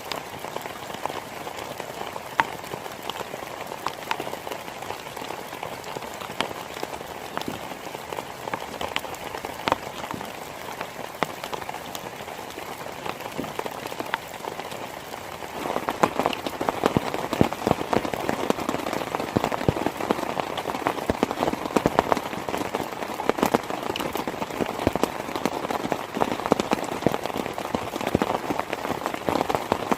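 Heavy rain falling on a nearby surface, with many individual drops striking sharply over a steady wash. About halfway through the downpour gets louder and denser.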